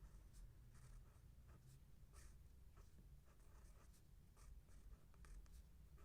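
Handwriting: faint scratching strokes of a pen on paper, short and irregular, as Thai letters are written out.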